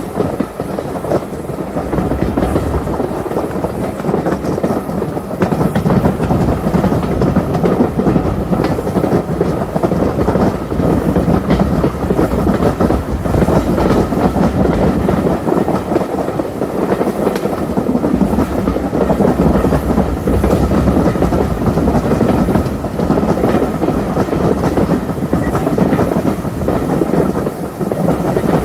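Heritage steam railway train carriage running along the line: a steady rumble of wheels on the track, with clickety-clack over the rail joints.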